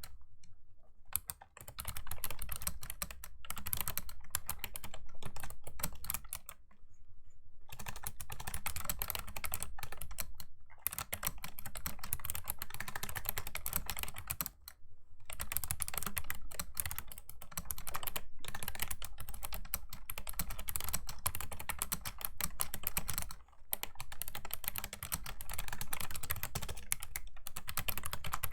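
Clicky keys of a Razer Ornata Chroma V2 mecha-membrane keyboard being typed on quickly and continuously. The typing pauses briefly a few times, longest for about a second and a half around a quarter of the way in.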